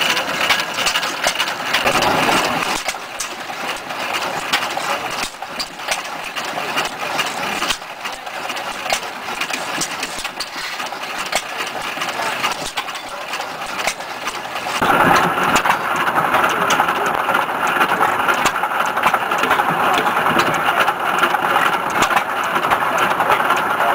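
Antique side-shaft stationary engine running, with a steady run of clicks and clatter from its valve gear. It gets louder about fifteen seconds in.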